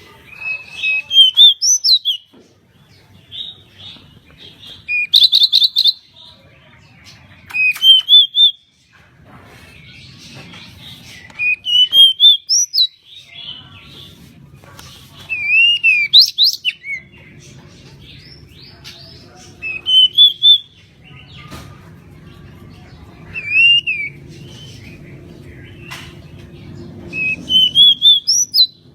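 Pied bushchat (decu) singing: about eight short phrases of quick, rising whistled notes, each under a second or two long and a few seconds apart, over a faint low background rumble.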